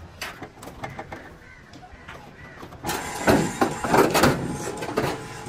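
Irregular knocks and clatter, sparse at first and then louder and denser from about three seconds in, with a faint steady ringing tone behind.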